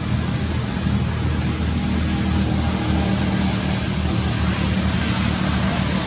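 Steady outdoor background noise: a constant low rumble with an even hiss over it.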